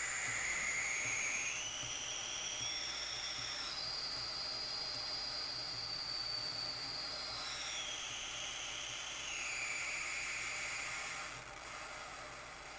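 High-pitched squeal from the right channel of a Peachtree Audio Grand Integrated X1's Class D amplifier, heard through the speaker: several tones glide in pitch, one climbing and another falling until they meet midway, then drawing apart again, before the squeal fades out near the end. It changes as a hot air gun warms the amplifier board's bulged filter capacitors, which the repairer suspects as the cause, with the gun's hiss underneath.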